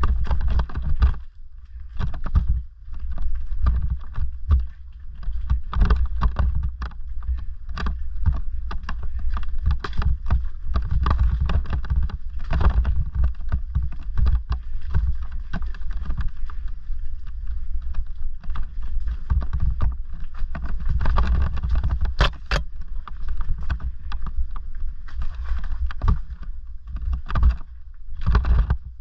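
Bafang-powered Orange Gyro e-bike ridden over loose stones and rock: a continual clatter of knocks and rattles from the bike jolting on the rough ground, over a steady low rumble, with one especially sharp crack about three-quarters through.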